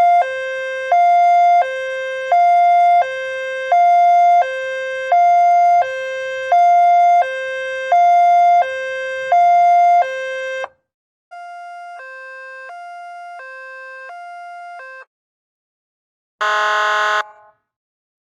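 Two-tone ambulance siren alternating steadily between a high and a low note, each held about two-thirds of a second. It stops about ten seconds in, and the same hi-lo siren comes back fainter for about four seconds. Near the end comes a short, loud blast about a second long.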